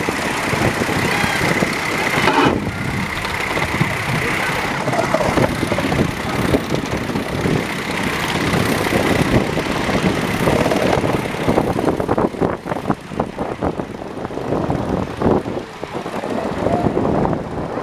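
5 inch gauge live steam locomotive running with its ride-on train: a continuous rumble and hiss of the moving train, with a steady high tone for the first couple of seconds and a run of quick clicks in the second half.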